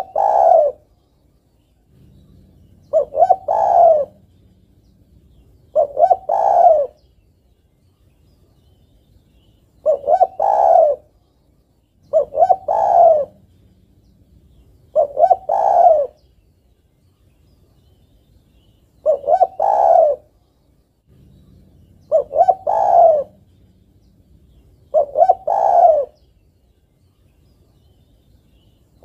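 Spotted dove cooing. Each call is two or three quick notes running into a longer coo, repeated eight times at about three-second intervals. The uploader presents it as a female calling to a male.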